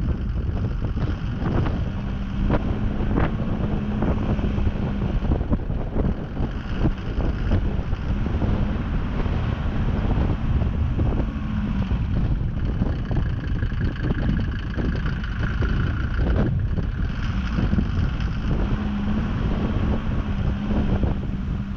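A vehicle driving, its engine hum coming and going under heavy wind rumble on the microphone.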